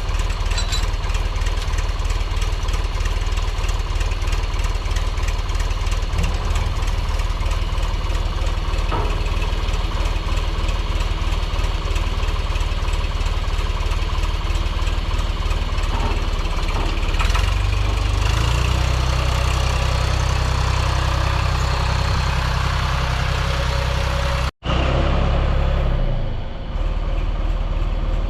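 Gasoline engine running steadily. Its low note grows stronger about two-thirds of the way through, and the sound cuts out for an instant near the end.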